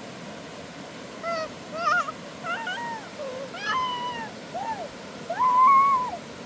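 A cat meowing repeatedly: about seven short calls that rise and fall in pitch, starting about a second in, ending with one longer, louder meow, over a steady background hiss.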